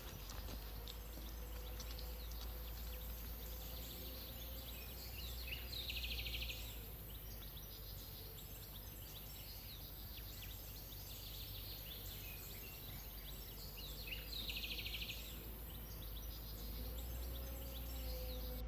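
Outdoor ambience: a steady low rumble with a short, high, buzzing trill that comes three times, about every five seconds.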